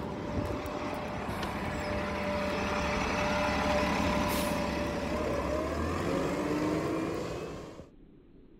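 City bus engine running close by, with a short hiss about four seconds in and the engine note rising near the end, then cutting off suddenly.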